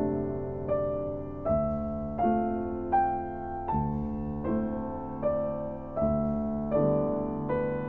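Slow piano music: a chord or note is struck about every three-quarters of a second and left to ring and fade, with the melody rising through the first few seconds and then falling back.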